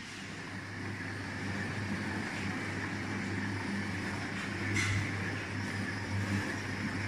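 Double cone powder mixer running, its electric motor and worm gearbox turning the stainless steel cone vessel: a steady hum with a hiss over it, and a brief knock about five seconds in.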